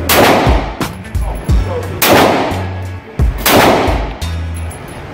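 Three gunshots about a second and a half apart, each with a long echoing tail, over background music.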